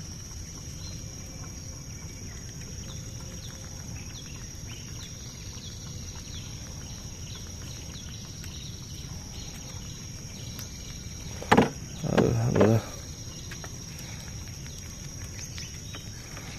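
Outdoor river ambience: a steady low hum and a thin, steady high whine, with small chirps repeating about twice a second. About eleven seconds in comes a short, loud, sharp sound, followed by a brief pitched call.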